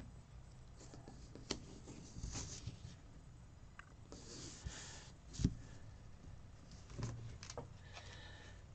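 Washi tape being laid across a planner page and smoothed down by hand: faint paper-and-tape rustles, two short hissy stretches and scattered light taps, with one louder knock about five and a half seconds in.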